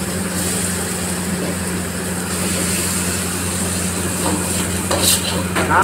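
Steady kitchen background roar with a low mechanical hum, as noodles are stirred in a steel wok with a steel ladle; one sharp metallic clink of the ladle on the wok about five seconds in.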